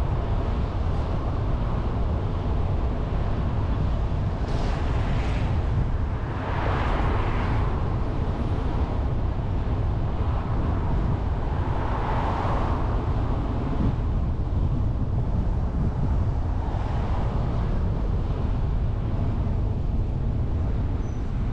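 Road noise of a car driving through city traffic: a steady low rumble of tyres and wind. The noise swells several times, about five, seven, twelve and seventeen seconds in, as vehicles go by.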